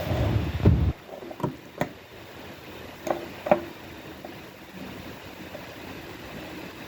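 A burst of rumbling handling noise, then four short sharp clicks or taps in two pairs, over a steady low hiss.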